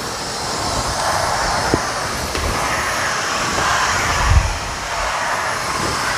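Hoover Steam Complete Pet steam mop running as it is pushed over tile: a steady hiss of steam and machine noise that swells and eases with the strokes, with a low thump about four seconds in.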